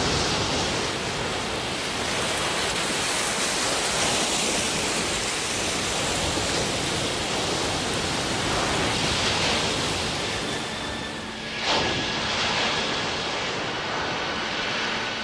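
Anime sound effect of an energy-beam blast striking the sea and throwing up spray: a long, steady rushing noise that eases a little, then surges briefly near the end.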